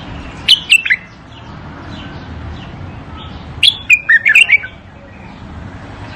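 Bulbul singing: two loud, quick warbling phrases, a short one about half a second in and a longer one near four seconds in, over faint chirps and a steady hiss.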